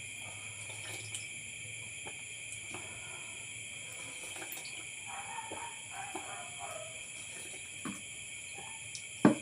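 Steady high chirring of night insects, with faint scattered clicks, and one sharp knock near the end, the loudest sound.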